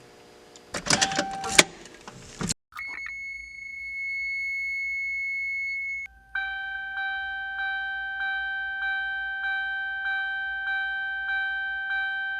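A few clicks and knocks, then the Toyota MR2 SW20's stock warning buzzer sounds one steady, high-pitched buzz for about three seconds. After a short break, the replacement 1991 Toyota Previa door chime (part 85991-28010) rings a repeating ding, about ten strikes a little under two a second, each fading before the next.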